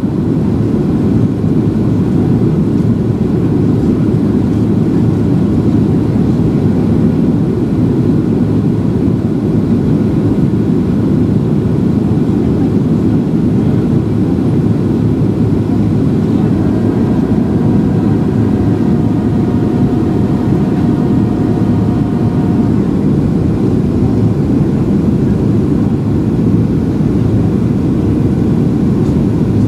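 Steady rumble of a Boeing 737-700's CFM56 jet engines and rushing air, heard from inside the passenger cabin. A faint, steady hum of several tones sits on top of it for about six seconds, a little past the middle.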